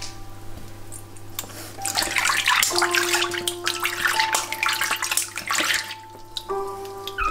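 Water splashing in a sink as a hand scoops and pours bath water over a small kitten, loudest in the middle and easing off near the end.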